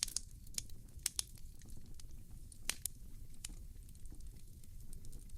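Wood fire crackling in a fireplace, with irregular sharp pops and snaps over a low steady rumble.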